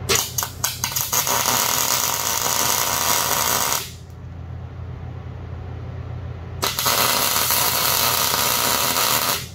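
Gas-shielded MIG welder arc crackling as the truss is welded to the axle housing: two runs of about three seconds each with a pause between. The first starts with a few short stuttering pops before settling into a steady crackle.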